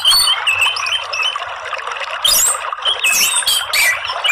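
Orange-headed thrush chirping in quick, short whistled notes repeated many times, with a few higher thin sliding notes, over a steady rush of running water.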